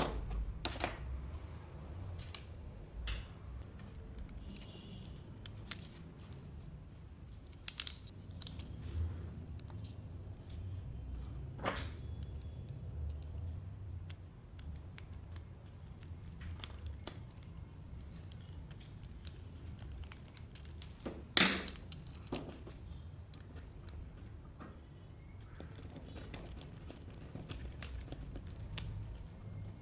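Small wooden kit parts, a servo bracket and screws being handled and fitted together by hand: scattered light clicks and taps of wood and metal, the loudest about 21 seconds in.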